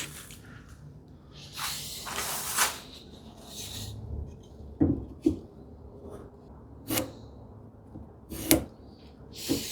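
Wooden workpiece and hand tools being handled on the bench: a scraping slide about two seconds in, then a handful of separate light wooden knocks and clicks.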